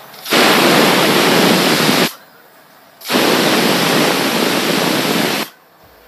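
Pigeon pressure cooker giving two whistles: two loud bursts of hissing steam from the weight valve, the first about two seconds long and the second about two and a half, a second apart. The whistles count the pressure-cooking of the curry.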